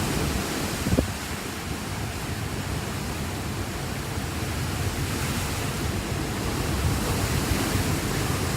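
Hurricane-force wind blowing steadily, with gusts rumbling on the microphone and a brief knock about a second in.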